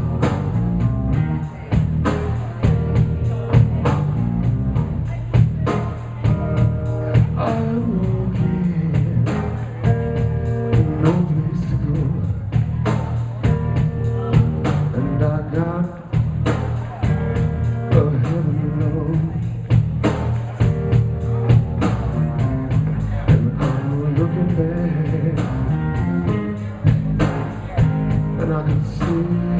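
Live blues band playing, with guitar lines over a steady drum-kit beat.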